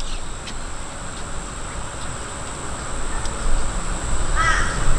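Steady outdoor background noise with a thin, steady high whine, a few faint clicks from a small wrench working on the alternator's top stud, and a crow cawing briefly near the end.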